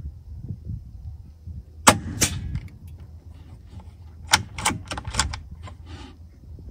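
Gamo Arrow PCP air rifle firing once about two seconds in, a single sharp crack, followed near the end by a quick run of clicks as its rear cocking lever is worked for the next shot. A low wind rumble on the microphone runs underneath.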